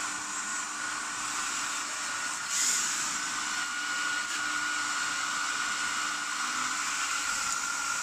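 Mini 3D-printed RC hovercraft's small brushless quadcopter motors (Mamba 1105, 5500 kV) spinning their propellers: a steady motor whine with a rush of air, briefly louder about two and a half seconds in.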